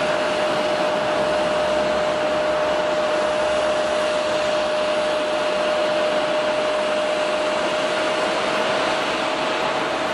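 Bombardier DHC-8-315Q (Dash 8-300) twin turboprop at take-off power, lifting off and climbing away: its Pratt & Whitney Canada PW123-series engines and propellers give a steady rushing noise with one held tone, easing slightly near the end.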